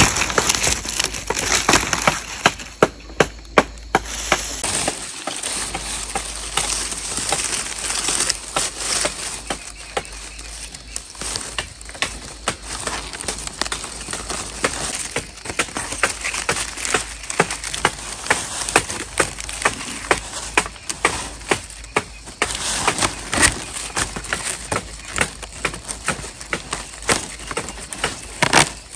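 Bamboo being worked by hand: irregular sharp knocks and chops, several a second at times, a few much louder than the rest, with rustling in between.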